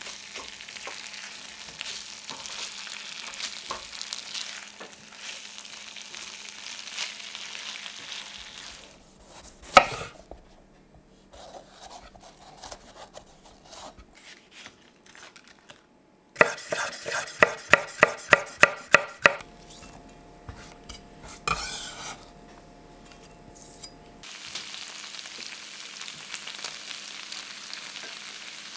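Beef strips and potatoes sizzling in a frying pan while a spatula stirs them. A single sharp knock comes about a third of the way in. Past the middle, a knife slices a red bell pepper on a wooden chopping board in a quick run of about a dozen crisp cuts, about four a second, and near the end the pan sizzles again.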